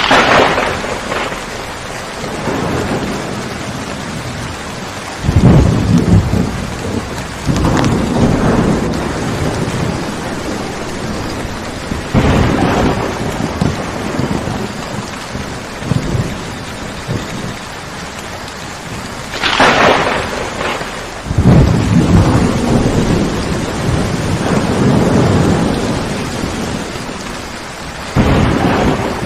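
Steady rain with repeated thunder: sharp claps near the start and about two-thirds of the way through, and deep rumbling rolls in between, each swelling and fading over a few seconds.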